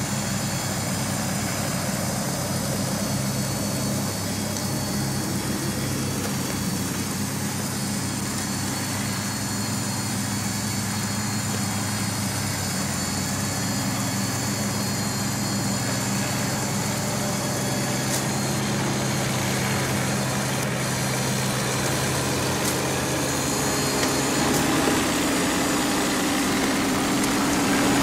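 Meccano model crawler tractor running under its own motor, a steady mechanical hum of motor and gearing. About four seconds from the end its pitch shifts and it grows a little louder.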